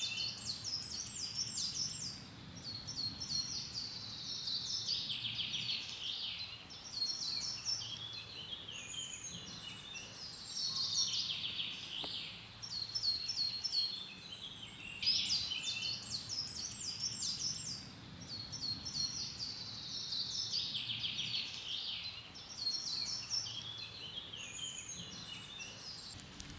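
Songbirds singing, with short phrases of rapid high notes repeating every few seconds and overlapping, over a faint low background hum.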